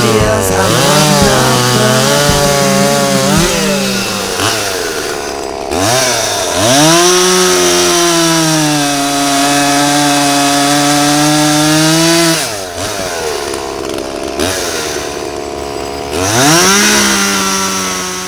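Chainsaw engine revving as it cuts into a tree limb. Its pitch jumps up and down in the first few seconds, climbs and holds high for about six seconds, drops back to a lower speed, then climbs and holds again near the end.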